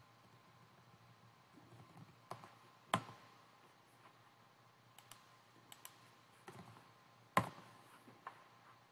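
Scattered quiet clicks of computer keyboard keys being typed, with two sharper clicks about three seconds in and about seven and a half seconds in.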